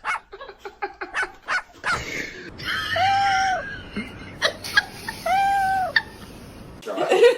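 An animal calling: a quick run of short calls, then two long arched cries about two seconds apart.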